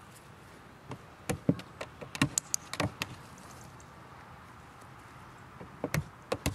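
Irregular sharp knocks and clicks, bunched in the first three seconds and again near the end: a dog's paws on a hollow plastic tub and a training clicker during a clicker-training session.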